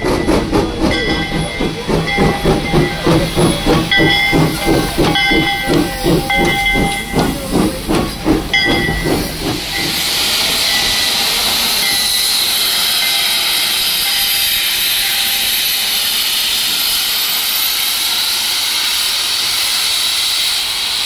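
Steam locomotive working: rhythmic exhaust chuffs, about two to three a second, with several short whistle toots over them. About ten seconds in these give way to a steady, loud hiss of escaping steam.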